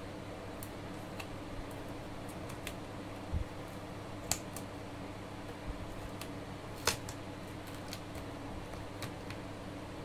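A thin prying tool working along the glued edge of a Poco X3 Pro's back cover, making scattered small clicks and ticks as the adhesive is worked loose, with a low thump a few seconds in and two sharper clicks near the middle. A steady low hum runs underneath.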